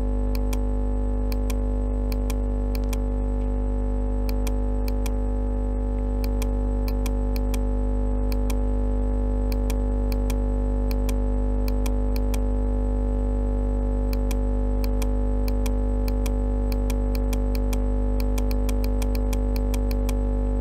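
Steady electrical hum with many overtones, unchanging in pitch and level. Short, sharp clicks come through it irregularly and grow more frequent in the last few seconds.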